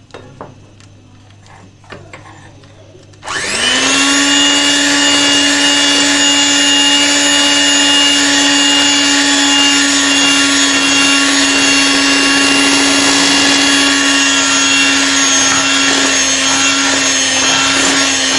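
Electric hand mixer switched on about three seconds in, spinning up quickly and then running steadily with a loud motor hum, its beaters mixing flour into egg batter. A few faint knocks come before it starts.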